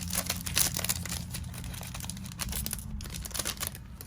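Foil wrapper of a Yu-Gi-Oh trading card booster pack crinkling as it is handled and opened, a dense run of short, irregular crackles.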